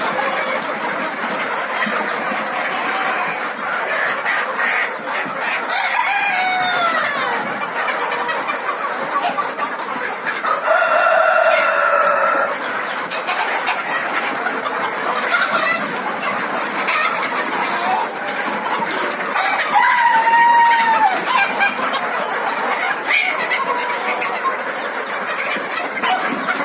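Chickens clucking and calling without a break. A few longer drawn-out calls stand out, the longest held for about two seconds around 11 seconds in.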